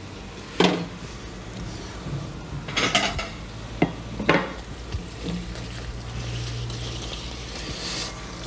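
Metal utensil knocking and scraping against a sauté pan as penne is mixed with the mushrooms and guanciale, giving a few sharp clinks spread over several seconds.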